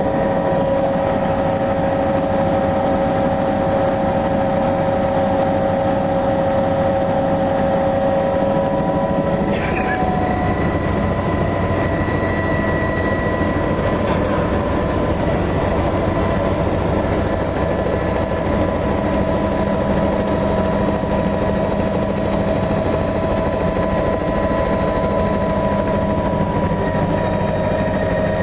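Helicopter running with a steady drone and a whine. About ten seconds in, the whine's tones shift slightly in pitch.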